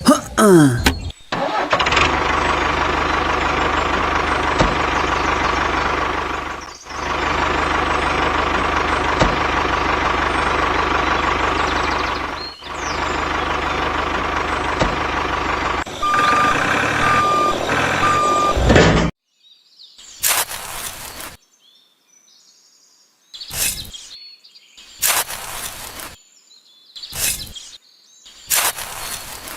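A motor vehicle's engine running steadily, cut by two brief dips; then three short beeps, typical of a reversing alarm. After that come short separate bursts of noise with quiet between.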